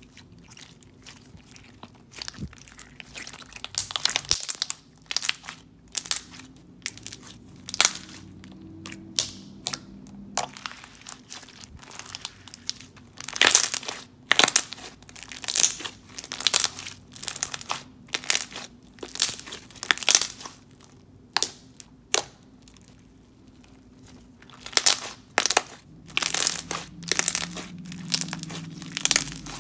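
Clear slime with pom-poms being stretched, squeezed and pressed by hands: a string of irregular sticky pops and crackles, some coming in quick clusters.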